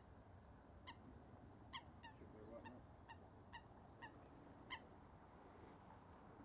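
Faint bird calls: a string of about eight short, clipped calls, roughly one every half second to second, over a low outdoor hush.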